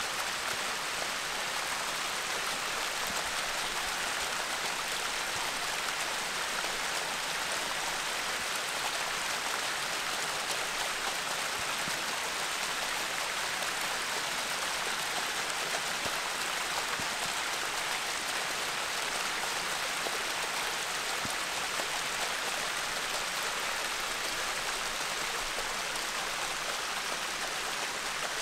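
A thin sheet of water running and splashing down sloping bare rock slabs, a steady rushing hiss with no change.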